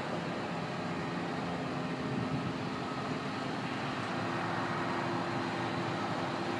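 Steady hum of road traffic, with a faint low steady drone underneath.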